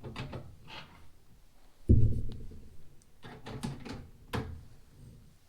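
Fire alarm control panel being handled: a few light clicks, one dull thump about two seconds in that rings briefly, then more sharp clicks.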